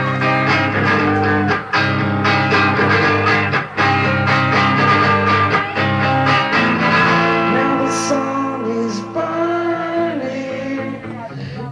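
Live rock performance: an electric guitar strumming chords, with a man's voice starting to sing about seven seconds in.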